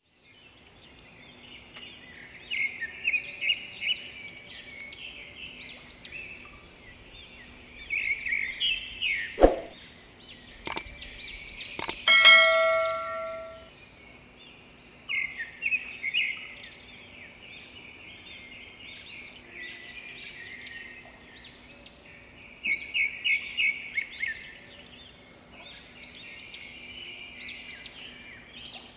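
Small birds chirping in repeated quick runs, with a few sharp knocks and, about twelve seconds in, a loud metallic clang that rings on for a second or so.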